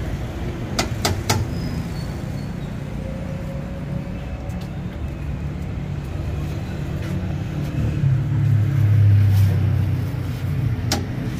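Steady street traffic rumble, with a vehicle engine growing louder about eight seconds in and then easing off. Three quick metallic clinks about a second in and one more near the end from a steel ladle against the curry pan.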